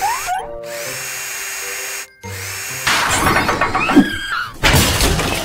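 Cartoon sound effect of a cordless power drill whirring as it fastens a truck wheel. A rising swoosh comes first, then a steady whirr that cuts off about two seconds in, followed by a busier stretch of tool noise over bouncy background music.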